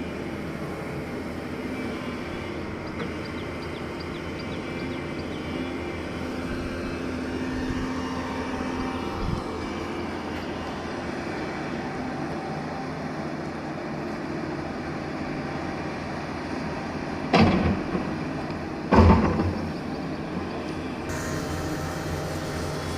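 Diesel engine of a heavy earthmoving machine running steadily. Near the end there are two loud knocks about a second and a half apart.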